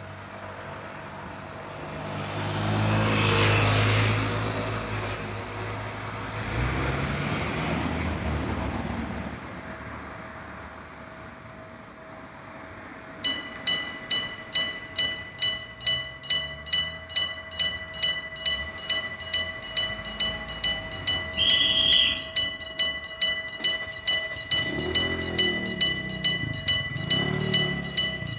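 Two vehicles pass, then about a third of the way in a level crossing's electric warning bell starts, a gong struck steadily about two to three times a second. Just past the middle a short high police whistle blast sounds over the bell.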